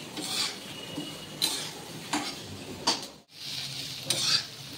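Spatula scraping and stirring onions and whole spices in a small non-stick kadai, about five sharp strokes over a light, steady sizzle of frying in a little oil.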